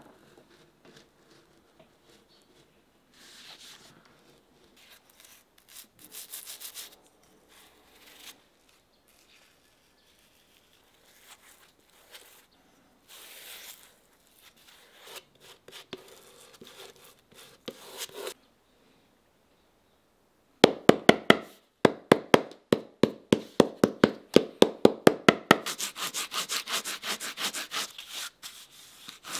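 Cork filler on a shoe's bottom being rasped level by hand: a loud, rapid run of scraping strokes, about four a second, starting about two-thirds of the way in. Before that, fainter scratching from a knife cutting cork sheet and a brush spreading cement.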